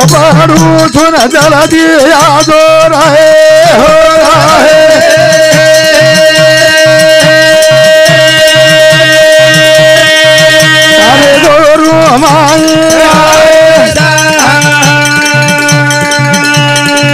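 Banjara devotional bhajan: a man sings long held notes, wavering and ornamented over the first few seconds, then sustaining one note for about seven seconds and another near the end. Beneath him brass hand cymbals clash in a steady rhythm and a drum keeps the beat.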